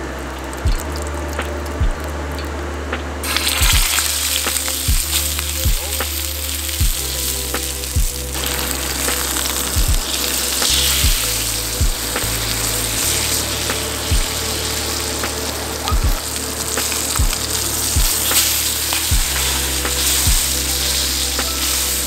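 Steak sizzling in butter in a hot titanium fry pan. The sizzle starts abruptly about three seconds in, as the meat goes into the pan, and keeps up steadily. Background music with a steady beat plays throughout.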